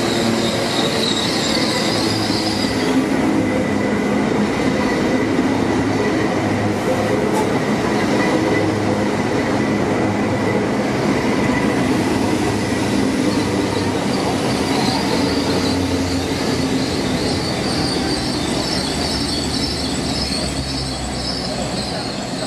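Great Western Railway Class 800 Intercity Express Train rolling slowly past, with a steady rumble and hum. A high-pitched wheel squeal is heard for the first few seconds and again from about two-thirds of the way through.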